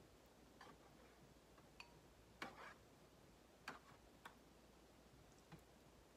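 Eating sounds: a fork clicking and tapping faintly against plastic takeout containers, about six light, irregular clicks amid near silence.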